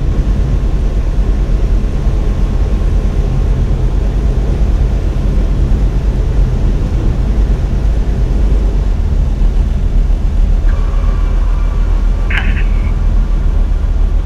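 Tecnam P92 light aircraft's engine and propeller running at low power during the landing roll, a steady low drone heard from under a pilot's headset earcup. A short click comes near the end.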